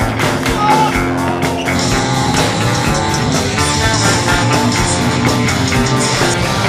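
Punk rock song with electric guitar and a steady drum beat.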